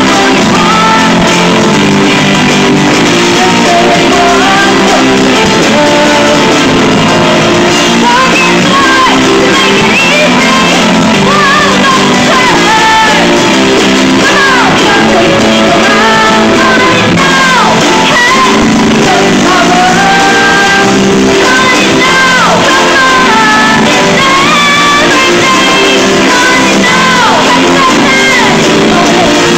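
A live rock band playing loudly: female voices singing a melody over electric guitars, keyboard and drums, in a large room.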